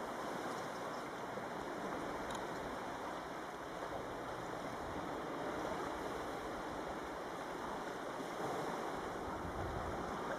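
Small waves washing steadily onto a pebble beach, an even watery hiss.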